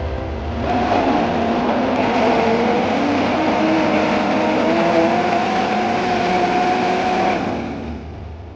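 Electric countertop blender puréeing chopped vegetable matter, its motor running loud with a pitch that wavers as the load shifts. It picks up about a second in and dies away near the end.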